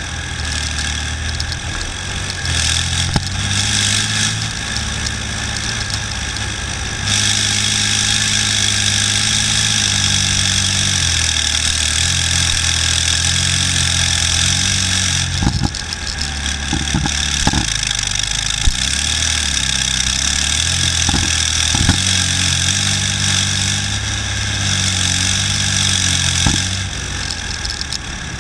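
BVP-1 tracked infantry fighting vehicle driving over rough ground: its diesel engine running loud, its pitch stepping up and down as the driver changes speed. A strong hiss comes up about seven seconds in and eases around halfway, and several sharp knocks from the jolting hull sound in the second half.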